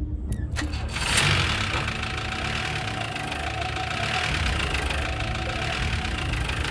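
Old open jeep's engine: a few clicks, then about a second in the engine comes in and runs steadily.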